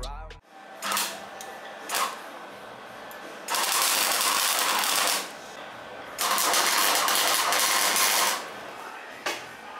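Electric arc welder crackling while welding a steel tube: two short tacks, then two longer weld runs of about two seconds each, and one more brief tack near the end.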